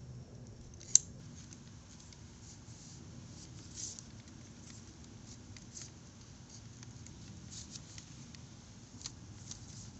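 Faint handling of a windshield wiper blade as a new rubber insert and its metal wire are pushed into place: scattered light clicks and rustles, with one sharp click about a second in.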